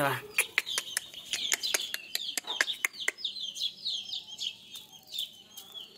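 Chickens and pigeons pecking at feed, a quick run of sharp taps through the first half, then chickens chirping and clucking in short high calls repeated rapidly.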